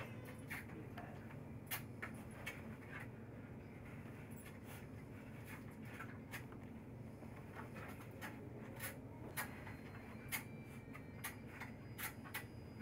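Wolf pup suckling from a milk bottle: scattered soft clicks and smacks at an uneven pace, over a steady low hum.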